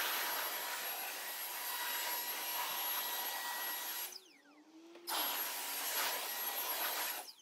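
Electric blower running, a steady rush of air with a motor whine, blowing over the engine bay. About four seconds in it switches off and its motor winds down in falling pitch, comes back on about a second later, and cuts off again near the end.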